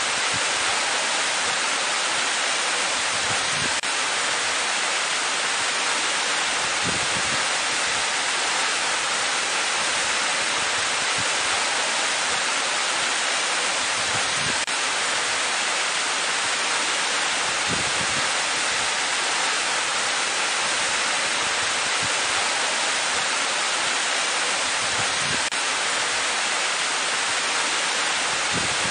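Waterfall: a steady, even rush of falling water, with no music.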